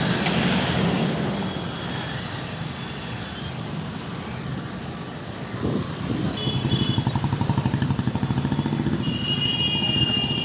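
Engine and road noise heard while riding in a moving vehicle through traffic. From about six seconds in the engine's beat grows louder and pulses rapidly, with a brief high tone near the end.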